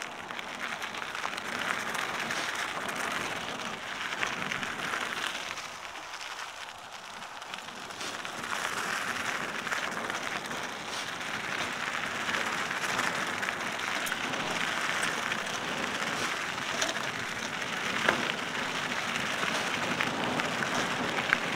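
Cannondale mountain bike's tyres rolling over a dry dirt single-track, a steady gritty crackle that eases off briefly about six seconds in, with a couple of sharp knocks from the bike near the end.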